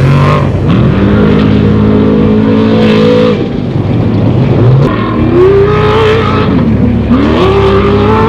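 Off-road race vehicle's engine revving hard: the pitch climbs and holds, drops off about three seconds in, then climbs again twice more.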